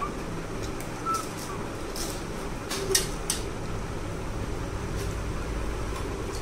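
Steady room hum under a few brief clicks and crunches of people hurriedly eating pani puri, crisp puris being bitten and handled over steel plates.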